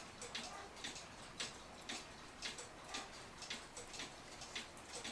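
8-day mechanical cuckoo clock movement ticking steadily, about two ticks a second, its pendulum and escapement running.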